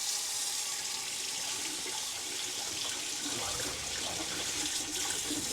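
Kitchen faucet running steadily on hot, water streaming into the sink, with air being purged from the lines of a newly installed propane tankless water heater.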